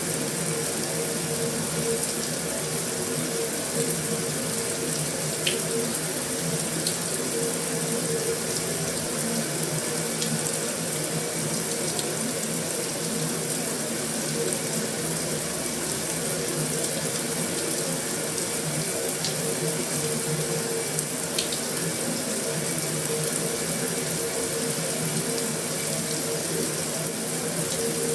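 Heavy rain falling steadily on a metal roof: a dense, even hiss with a few sharper drop ticks scattered through it, over a faint steady low hum.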